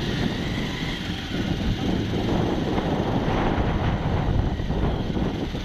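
Motorcycle engine running while riding on a rough road, with wind buffeting the microphone.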